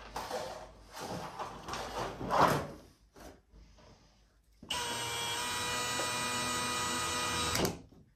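A few seconds of rattling and clatter from a galvanized steel sheet being lifted and handled, then after a short pause a cordless drill runs steadily for about three seconds, driving the fasteners of the stove jack's mounting ring, and stops.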